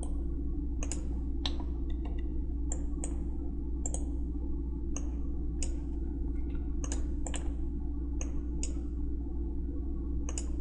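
Computer mouse clicking: about fifteen single clicks at an irregular pace, sometimes two in quick succession, over a steady low electrical hum.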